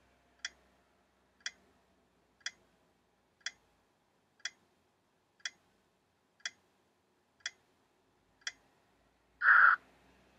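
Countdown-timer clock ticking, one tick per second, as the ten seconds to answer run out. Near the end, a short, louder sound lasting about half a second marks the end of the countdown.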